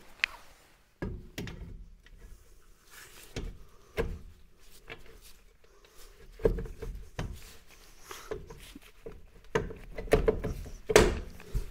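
Cast-iron rear brake drum being slid back onto the hub over the brake shoes: a series of separate knocks and scrapes, the loudest near the end.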